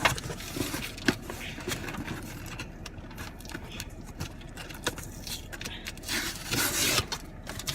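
A cardboard subscription box being opened and its packaging handled: scattered clicks and scraping, with a longer rustling rush about six and a half seconds in.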